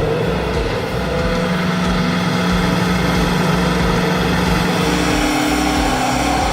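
Heavy mining machine's diesel engine running steadily, a constant low rumble with a held drone whose pitch shifts about five seconds in.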